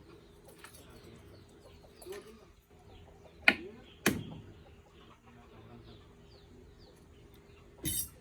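Chickens clucking faintly, broken by two sharp knocks about three and a half and four seconds in, and another louder knock near the end.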